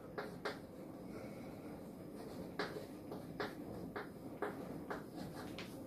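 Chalk writing on a chalkboard: a run of short, light chalk strokes and taps, irregularly spaced, as a short phrase is written out.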